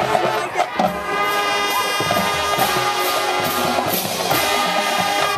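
High school marching band playing: the brass holds long, loud chords, with a few drum hits in the first couple of seconds.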